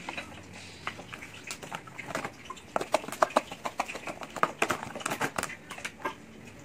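Quick, irregular clicks and taps of a plastic food container and hands as tilapia pieces are dredged in flour, thickest in the middle few seconds.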